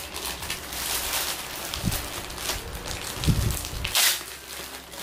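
Plastic packaging rustling and crinkling as a parcel is handled and opened, with two soft thuds partway through and a sharper crackle near the end.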